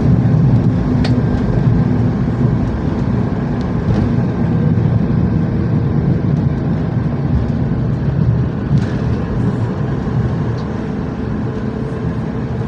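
Cabin noise of a Boeing 737 MAX decelerating on the runway after touchdown: a loud, steady low rumble of engines and rolling wheels that eases off gradually, with a couple of faint clicks.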